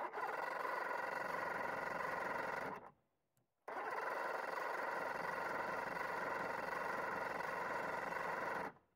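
An outboard's electric starter motor whining steadily in two long runs, the second starting about four seconds in, with no sign of the engine firing. The starter's drive gear is stuck up against the flywheel and the outboard will not start.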